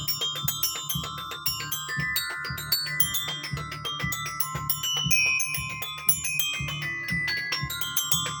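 Mallet percussion played in a fast run of struck, ringing high notes over a steady low beat.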